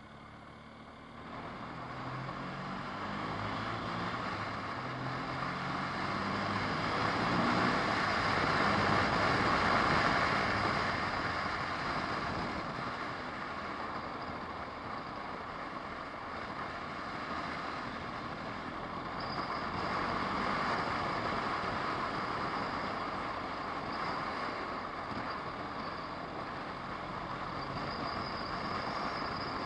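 Car engine and road noise heard from inside the car, the engine rising in pitch as it accelerates over the first several seconds. The noise swells while passing through a road tunnel and then settles to a steady hum of tyres and engine on the open road.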